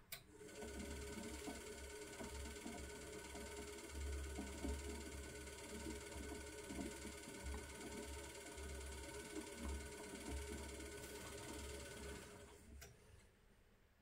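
A motor in an Asko 12605 front-loading washing machine running steadily with a whine and an uneven low rumble. It starts with a click and cuts off about twelve and a half seconds in, followed by a second click.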